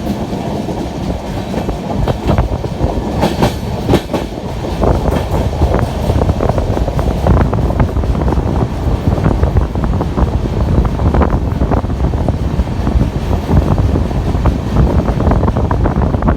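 Indian Railways passenger train running on the track: a continuous low rumble with the wheels clicking and knocking over rail joints.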